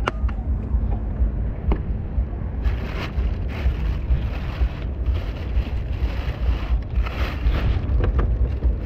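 Wind buffeting the microphone of a rider on a moving motorbike: a heavy, gusty rumble, with stretches of hiss from about three seconds in.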